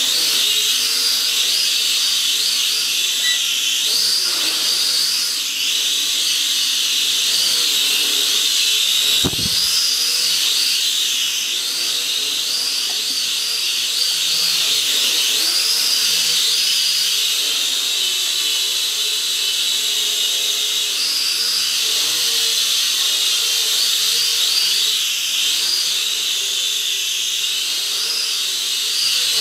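Whine of a SKRC Q16 mini quadcopter's motors and propellers in flight, wavering up and down in pitch as the throttle changes. A single low thump about nine seconds in.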